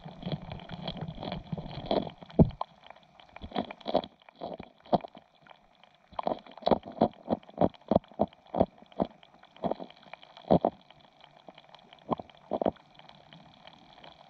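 Bluegill chewing and crunching grubs, heard through an underwater microphone: a run of sharp, irregular clicks a few times a second, with a short pause about five seconds in.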